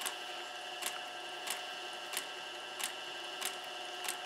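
Industrial sewing machine stitching leather slowly: a steady motor whine with a sharp click about every two-thirds of a second as each stitch is made.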